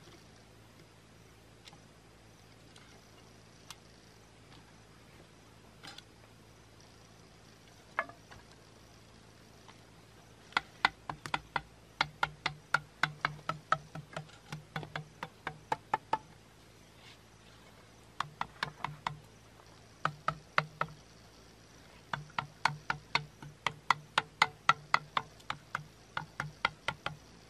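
Sharp knocks of a blade chopping at bamboo slats, coming in quick runs of about four or five strokes a second with short pauses between runs. They start about ten seconds in, after a few scattered light taps.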